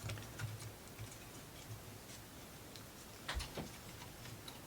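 Faint, irregular clicks and taps of small laser-cut plywood model pieces being handled and fitted, with two sharper knocks about three and a half seconds in.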